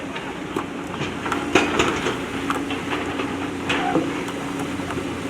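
JCB backhoe loader's diesel engine running steadily, with the sharp clanks and knocks of its bucket working against stones, the busiest stretch about one and a half to two seconds in.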